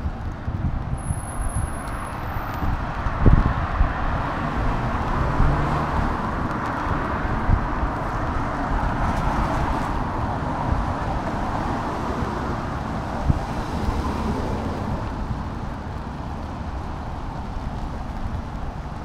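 Car traffic passing on a wet street, a steady tyre hiss that swells as vehicles go by, with wind buffeting the microphone as a low rumble.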